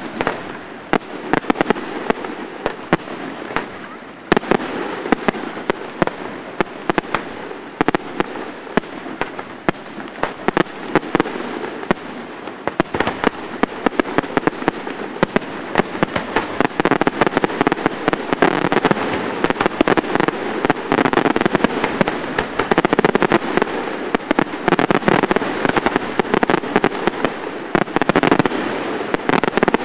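Fireworks display in full barrage: a dense, rapid run of sharp bangs over continuous crackling, starting abruptly and keeping up without a break.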